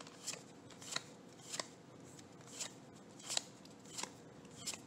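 Magic: The Gathering cards slid one at a time off the front of a hand-held stack, each giving a soft papery snap, seven or so in a row at a little over one a second.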